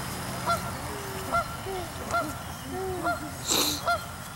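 Canada geese honking, short two-note honks repeating about once a second. A brief rushing noise comes about three and a half seconds in.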